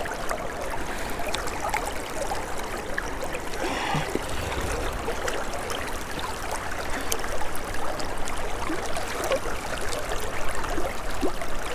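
Steady rush and trickle of flowing river current around a wading angler, with a few faint small ticks and splashes mixed in.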